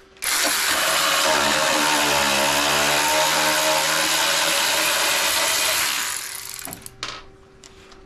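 Handheld power tool running for about six seconds as it spins out a bolt. Its motor whine starts suddenly, dips a little in pitch under load and steadies, then slows and stops, with a click near the end.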